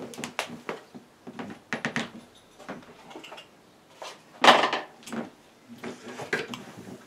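Metal palette knife being picked up and handled among other painting tools: a string of short clinks and scrapes, with one louder clatter about four and a half seconds in.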